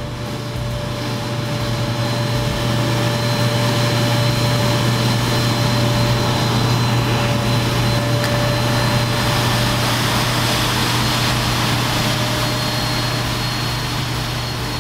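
Carpet extractor's vacuum motor running steadily as its wand is drawn over the carpet, a low hum with a steady high whine. It grows louder over the first couple of seconds.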